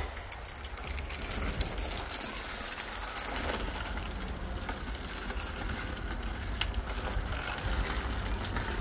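Small child's bicycle with training wheels rolling over rough concrete, its wheels and frame rattling with a steady run of clicks.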